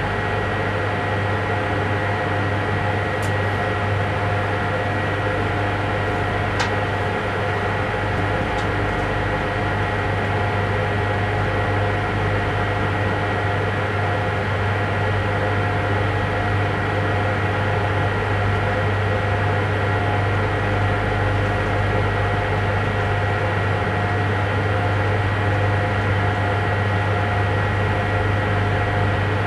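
Steady electrical hum and running noise inside the cab of an electric train moving along the track, with several held tones over an even rumble.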